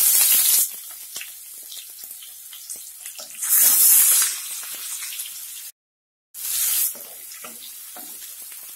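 Freshly added chopped onion sizzling in hot oil with mustard and cumin seeds in a kadhai, the first frying stage of a tempering. It hisses loudly in surges as it is stirred, settling to a lower steady sizzle with light clicks of a wooden spatula. The sound drops out briefly about six seconds in.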